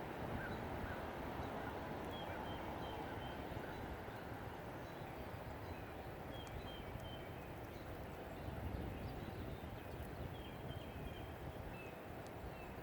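Steady low outdoor rumble with small birds chirping repeatedly, each chirp short, high and falling, from about two seconds in.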